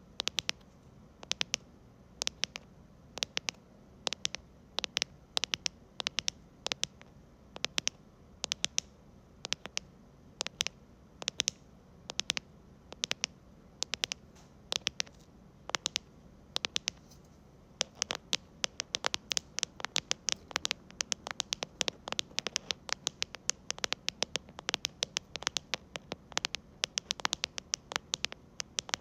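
Mechanical keyboard keys tapped with fingertips: quick irregular clusters of short clicks, growing denser about two-thirds of the way in.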